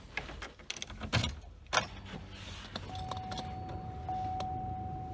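Car keys jangling and clicking in the newly installed ignition lock cylinder of a 2004 Chevy Impala, followed about three seconds in by the car's warning chime dinging steadily, about once a second.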